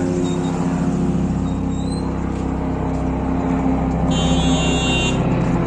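Motor vehicle engine running steadily at constant speed, with a brief high shrill tone lasting about a second, about four seconds in.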